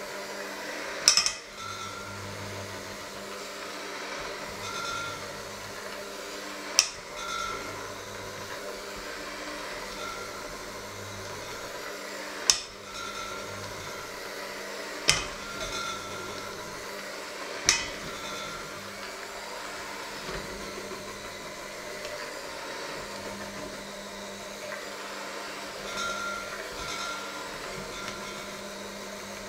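Electric hand mixer running steadily, its beaters churning a thick mixture in a stainless steel bowl, with about five sharp metal knocks as the beaters strike the bowl.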